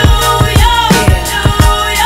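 Hip hop music: a steady drum beat, about two hits a second, under a held, gliding melody line.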